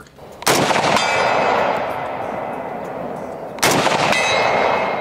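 Two shots from a Browning BAR MK3 DBM semi-automatic rifle in .308, about three seconds apart, each followed by a long metallic ringing tail that dies away slowly.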